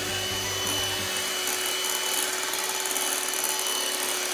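Home Line electric hand mixer running steadily, its beaters whisking thick cream-cheese cheesecake batter in a glass bowl: an even motor whirr.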